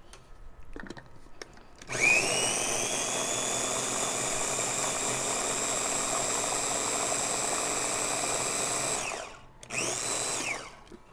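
Small Ninja food chopper's motor pureeing blueberries. It spins up with a rising whine about two seconds in, runs steadily for about seven seconds, then winds down. A second short pulse follows near the end.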